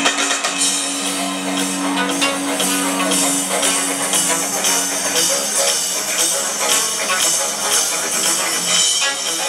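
Live rock band playing at full concert volume, with drums and busy, bright high percussion over a held low chord that fades about halfway through.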